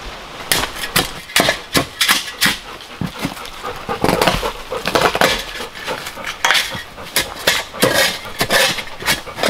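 Stones knocking, clinking and scraping as rocks at a cabin's stone footing are dug out and shifted with a hand tool: an irregular run of sharp knocks, several a second, starting about half a second in.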